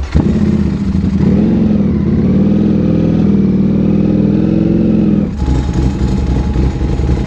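Ducati Panigale V4 sportbike engine running at low revs as the bike rolls slowly, its pitch swelling briefly about a second in. About five seconds in it changes abruptly to a steadier idle, with a deeper rumble and a thin steady tone above it.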